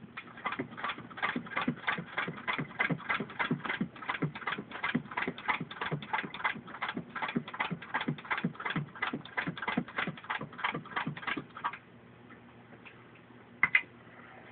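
1914 Singer Model 66 sewing machine head turned by hand, stitching through six layers of denim: a steady clacking of the mechanism at about four stitches a second, which stops about twelve seconds in, followed by a couple of single clicks near the end.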